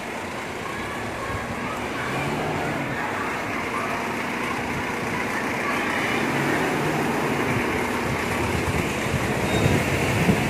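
Volvo FE 300 recycling truck's diesel engine running as the truck drives slowly past, growing gradually louder as it comes closer.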